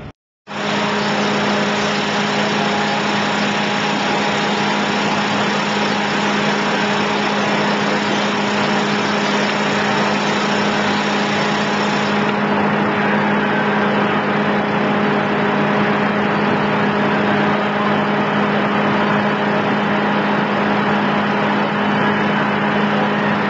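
Loud, steady industrial machinery noise: a constant low hum over a dense hiss. It starts suddenly just after the beginning, and the highest hiss drops away about halfway through.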